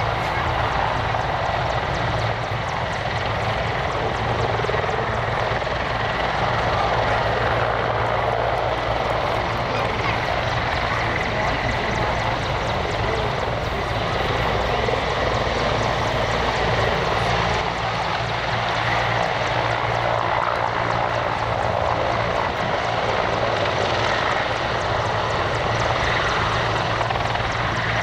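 Mil Mi-24 attack helicopter flying low: a steady, loud beat from its five-blade main rotor over the continuous turbine noise of its twin turboshaft engines.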